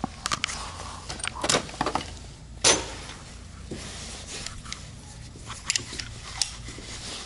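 Scattered metallic clicks and clinks of hand tools being handled: a ratchet and socket picked up and turned over in the hands, the loudest knock about a third of the way in. A low steady hum runs underneath.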